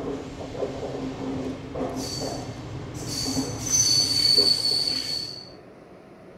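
A train rolling along the rails with a rumbling clatter and high steel wheel squeal, which sets in about two seconds in, is loudest around four seconds in, and stops near the end, leaving a quieter rumble.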